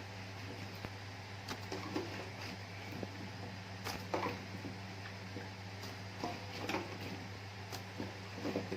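Scattered light knocks and clatter of raw potato chunks and kitchenware being handled, about eight soft hits, over a steady low electrical hum.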